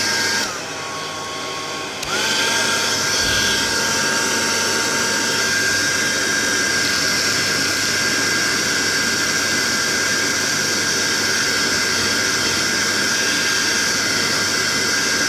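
Hair dryer blowing with a steady high whine; shortly after the start its pitch and level drop to a lower speed for about a second and a half, then go back up to full, and it cuts off at the end.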